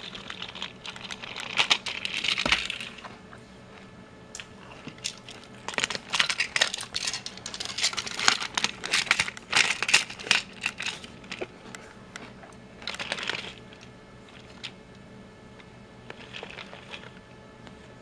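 Small hard plastic parts clicking and clattering in irregular clusters as a Duplo elephant is handled and fitted onto a toy train's truck.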